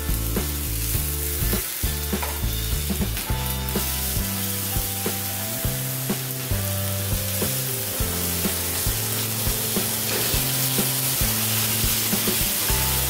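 Seasoned chicken fillets sizzling as they fry in coconut oil in a nonstick frying pan over low heat. A silicone spoon turns and presses the pieces, scraping against the pan now and then.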